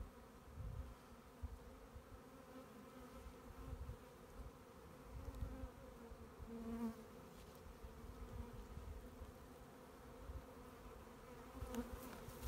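A swarm of honeybees buzzing as they fly around and into a hive box, making a faint steady hum. Irregular low rumbles come and go beneath it.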